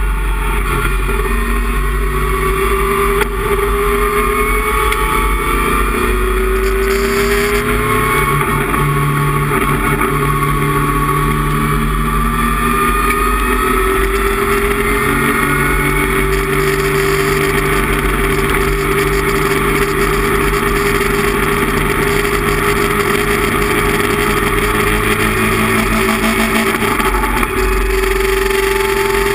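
Datsun 260Z race car's 2.6-litre straight-six engine pulling hard under full throttle, heard from inside the cabin. The engine note climbs slowly in long pulls, breaking off about eight seconds in and climbing again through the second half as the car runs down the long straight.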